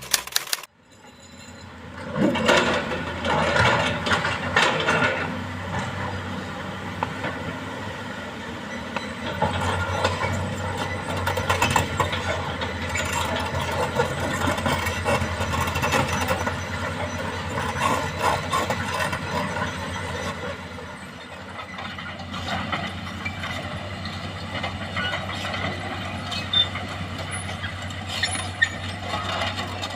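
Hydraulic excavator's diesel engine working under load, a steady drone with scattered knocks and scrapes of the bucket in sand and rock.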